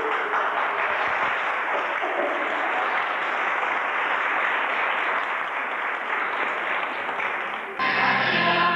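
Audience applauding steadily for about eight seconds. It breaks off abruptly near the end as music with singing starts.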